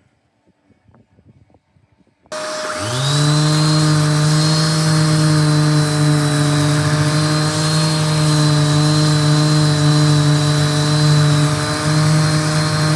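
A hand-held electric power tool switches on about two seconds in, whines up to speed within a second, then runs loudly and steadily at full speed.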